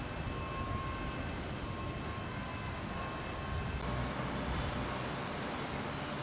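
Steady rumbling outdoor background noise with faint, broken whining tones. About four seconds in it changes abruptly to a brighter, even hiss.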